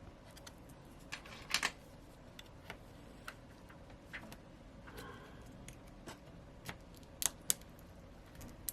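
Scattered small clicks, taps and faint scrapes of a metal pry tool being worked under a smartphone's glued-in battery, with a few sharper clicks about a second and a half in and twice near the end.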